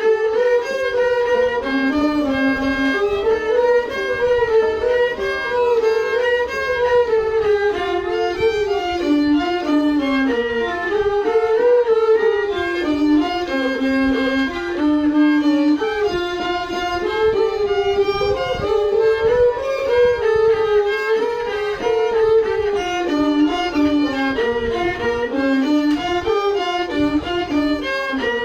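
A bowed string instrument playing a solo melody that moves in steps and turns within a narrow range, without a break.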